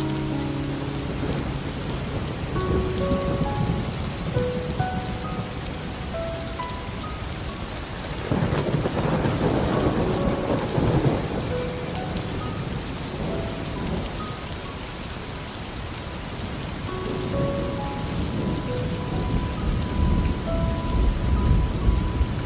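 Steady rain falling, with thunder rumbling in about eight seconds in and again near the end. Sparse, soft musical notes at different pitches sound over the rain.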